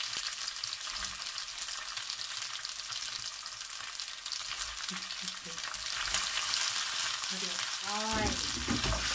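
Olive oil and pesto sizzling in a nonstick pan as cooked fusilli pasta is tipped in, with soft knocks of the pasta landing. The sizzle grows louder about two-thirds of the way through.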